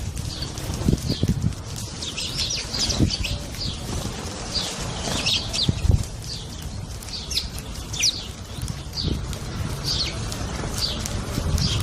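Small birds chirping continuously, many short high chirps a fraction of a second apart, over irregular low thuds.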